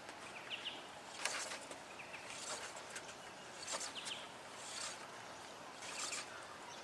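Faint outdoor ambience with short, high bird chirps repeating about once a second; no hammer blow is heard.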